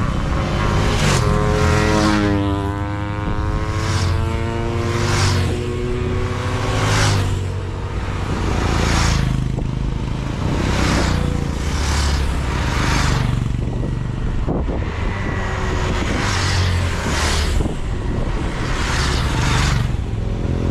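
Motorcycle engines running with a steady low rumble. A passing vehicle's engine note falls in pitch about two to four seconds in. A rushing noise comes and goes roughly once a second.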